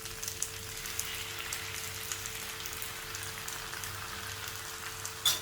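Stir-fry of vegetables and chicken sizzling and crackling steadily in hot ghee in a frying pan, with one sharp click near the end.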